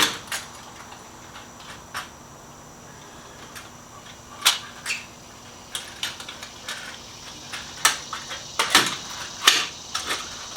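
Scattered metallic clicks and knocks as heat-shield clamps are handled and fitted onto a motorcycle exhaust pipe, with a few louder knocks close together near the end.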